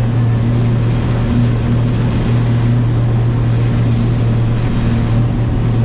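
Pipistrel Alpha Electro's electric motor and propeller at takeoff power on the takeoff roll: a loud, steady low hum over an even rushing noise.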